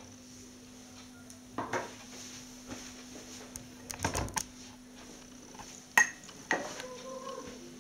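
A plate set down on a wooden table about four seconds in, a short clatter of dish against wood. A sharp single knock follows near six seconds, with a few lighter knocks around it.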